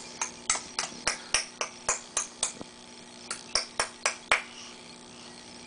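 A rapid series of short, sharp clicks, about four a second, with a brief pause near the middle, stopping about four and a half seconds in.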